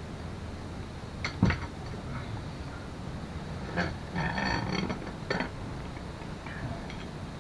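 Metal parts and tools knocking and clinking now and then during mechanical work on a scooter's rear hinge. A sharp knock comes about a second and a half in, and a cluster of short, ringing metallic clinks near the middle.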